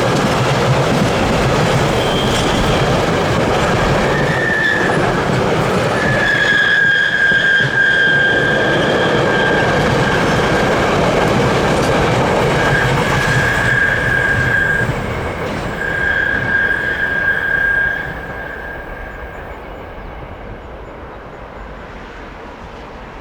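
A train passing on the rails with steady running noise, its wheels giving high, drawn-out squeals several times over. Near the end the passing noise drops off and fades away.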